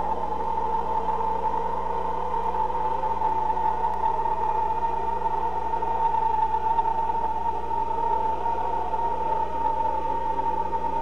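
A steady electronic drone: a high hum holding one pitch over a weaker lower tone and a low hum beneath, with no change in level.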